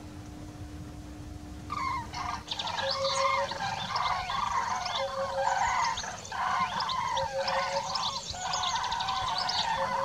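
A dense chorus of many birds calling at once, with wavering calls, short repeated notes and quick high chirps, starting suddenly about two seconds in over a faint low rumble.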